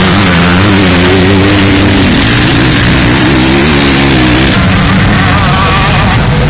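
Motocross dirt bike engine revving hard, its pitch rising and falling with the throttle. A higher-pitched engine note comes in near the end.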